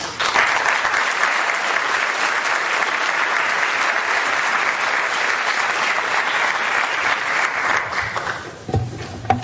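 Audience applauding as a talk ends, a dense clapping that starts right away and dies out near the end, followed by a couple of light knocks.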